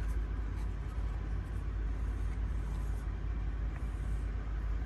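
Steady low background rumble, with a few faint taps and rustles as a small cardboard knife box is handled and opened.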